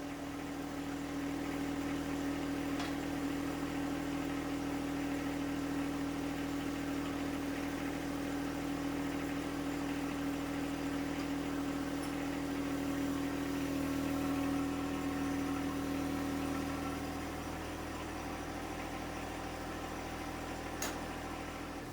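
John Deere 1025R sub-compact tractor's three-cylinder diesel engine running steadily with an even hum while the front loader sets the grapple down. It eases off slightly near the end.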